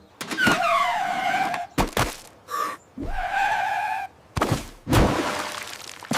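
Cartoon sound effects: a pitched sound that slides down and then holds, a short higher tone and a second held tone, broken up by several sharp knocks.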